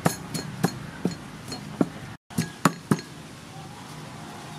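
Wooden pestle pounding garlic in a large wooden mortar: sharp knocks about three times a second. After a short break about two seconds in there are a few more strikes, and the pounding stops about three seconds in.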